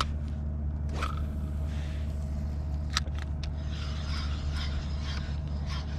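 A steady low hum, with a few sharp clicks and a short rattle from a spinning reel and rod being handled.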